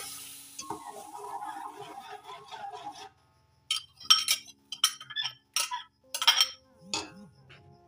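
Yogurt sliding out of a ceramic bowl into a steel cooking pot for about three seconds, then a string of sharp clinks as the bowl and the steel ladle knock against each other and the pot.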